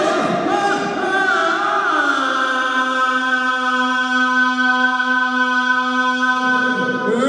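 Harmonica played without melody: wavering, bending reed notes for about two seconds, then a long steady low chord held for about four seconds.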